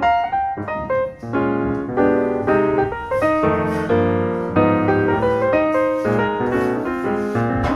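Background piano music with notes struck one after another.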